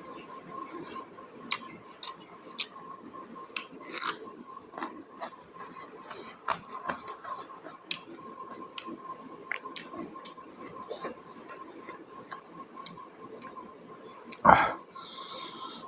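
Close-miked chewing of buffalo innards curry: wet mouth clicks, smacks and squishes at an irregular pace, over a faint steady hum. About fourteen and a half seconds in there is one loud, brief, low sound.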